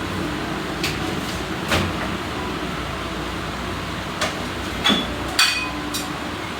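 About six short, light knocks and clicks, spaced unevenly, over a steady background noise.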